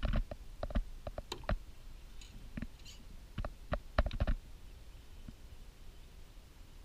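Scattered small clicks and taps from handling a Wubble bubble ball stuffed with water balloons, its plastic nozzle tube worked in the opening. The clicks thin out after about four seconds.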